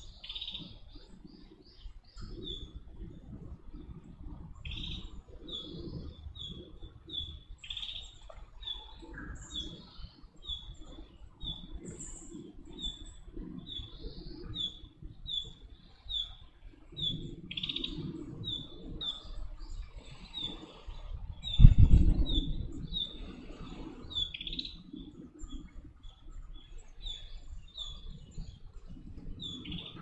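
Chestnut-cheeked starling nestling begging at the nest hole: a steady run of short high chirps, about two a second. A loud low thump comes about two-thirds of the way through.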